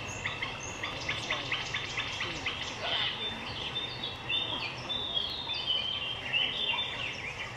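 Many small birds chirping and twittering in quick, overlapping calls, with faint crowd voices underneath.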